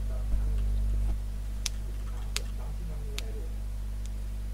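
Three short, sharp clicks about 0.7 s apart, typical of computer keys or a mouse, over a steady low electrical hum; a brief low rumble swells in the first second.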